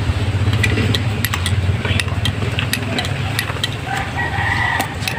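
Metal spoon stirring in a drinking glass, clinking against the glass many times over a steady low hum. Near the end a rooster crows once, in one long held call.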